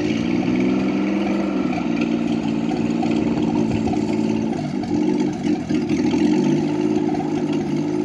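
Engine of a homemade helicopter running on test, its speed rising and falling as it revs.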